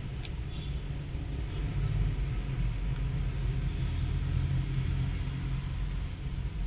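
Steady low rumble, with a single small click just after the start.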